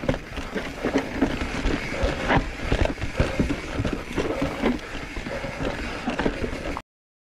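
Mountain bike ridden over a rough, technical dirt trail, heard on a GoPro's built-in microphone: tyres rumbling with frequent knocks and rattles from the bike as it hits roots and rocks. The sound cuts off suddenly near the end.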